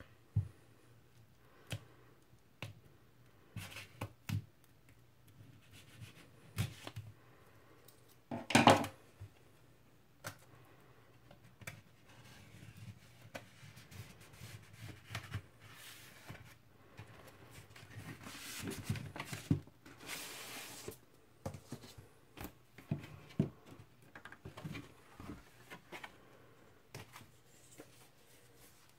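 Scissors snipping and cellophane shrink wrap being cut and peeled off a vinyl LP jacket: scattered clicks and crinkles, with one loud sharp crackle of plastic about nine seconds in and a longer stretch of rustling around twenty seconds in.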